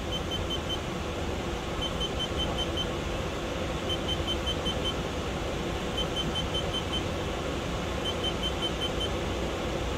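Electronic warning beeper sounding quick high beeps in bursts of about five, one burst every two seconds, over a steady low hum.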